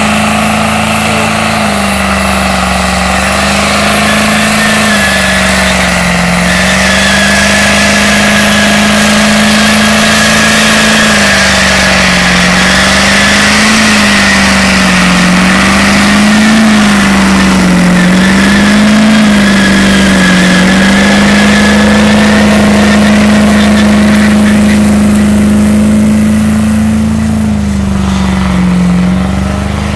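Ford Super Duty pickup's engine held at high revs through a long burnout, the revs wavering up and down as the rear tyres spin, easing off a few seconds before the end; a thin high tone over it is likely tyre squeal.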